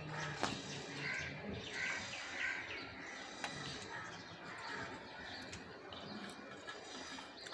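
Crows cawing, a string of short calls about a second apart.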